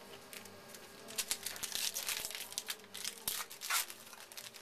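Crinkling and rustling as a trading-card pack and its cards are handled: a run of short crackles starting about a second in and stopping near the end, the loudest just before it stops.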